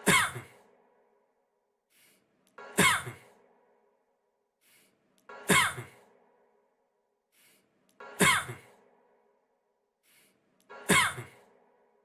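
A man's short cough, the same recording looped, repeating five times about every two and three-quarter seconds. Each cough is sharp and brief, with a voiced tail that drops in pitch.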